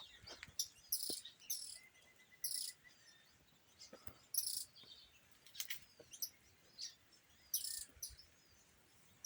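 Birds chirping in short, high notes that come roughly once a second, with a faint trill about two seconds in.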